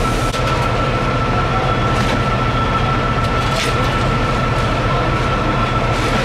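A fire truck's engine running steadily close by: a continuous low drone with a constant high whine over it and a few faint clicks.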